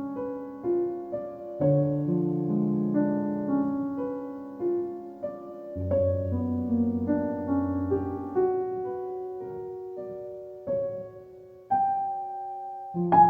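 Background music: a gentle solo piano playing slow chords and a melody, notes struck and left to ring out.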